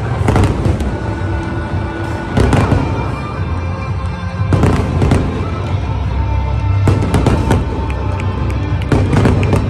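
Aerial fireworks bursting and crackling in repeated bangs every couple of seconds, the loudest around two and a half, five and nine seconds in, with music playing underneath.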